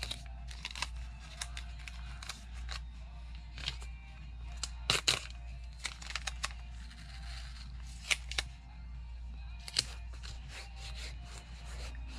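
Masking tape rustling and crinkling as it is folded and handled, with a few sharp clicks about five and eight seconds in, over a steady low hum.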